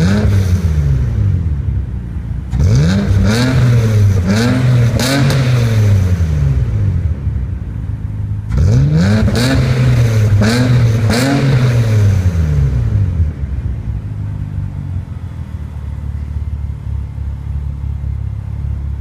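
Kia Magentis (Optima) V6 through a custom exhaust, revved in two bursts of three or four quick throttle blips, dropping back to a steady idle between them and near the end.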